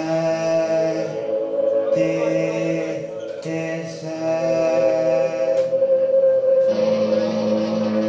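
Live psychedelic rock band playing a sustained, droning chord of held notes, with a few sharp cymbal-like strokes; about seven seconds in, the drone moves to a lower note.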